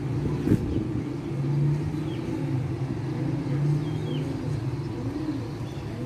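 Steady low rumble of distant road traffic, with a few faint high bird chirps.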